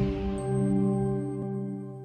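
Intro logo music: a sustained chord held and slowly fading away.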